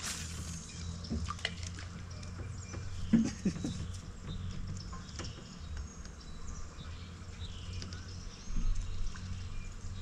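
Small water drips and splashes over a low steady hum, with faint bird chirps and a few light clicks. One sharp knock about three seconds in.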